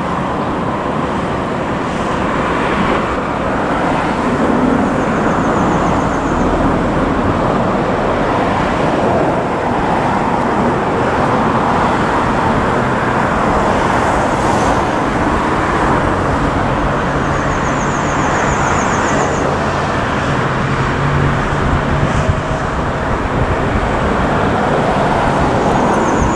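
Jet engines of a Spirit Airlines Airbus A320neo-family airliner running at taxi power: a steady, loud rush that grows a little louder a few seconds in.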